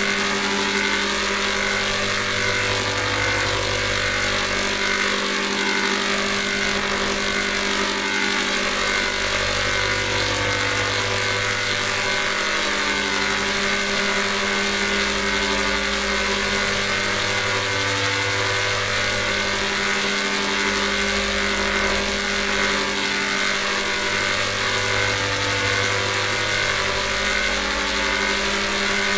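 Heavily processed, distorted electronic audio effect: a dense, steady drone of many sustained tones under a loud hiss. A low hum swells in and out about every seven seconds.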